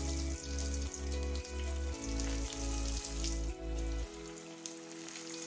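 Breadcrumb-coated fish pieces frying in hot oil with a steady sizzle. Background music with a pulsing bass runs underneath, and the bass drops out about four seconds in.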